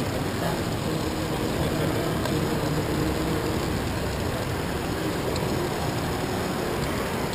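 Steady running noise of a Lego monorail, its small motor and wheels whirring and rattling along the track, heard from a camera riding on the train, over a faint murmur of crowd voices in a large hall.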